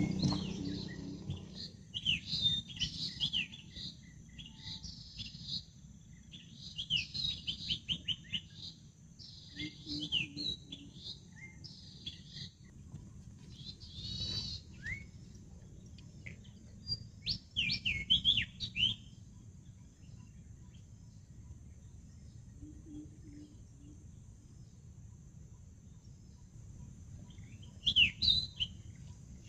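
A bird singing in short phrases of quick, high chirps, one phrase after another for the first two-thirds, then a gap and one more phrase near the end, over a faint low steady rumble.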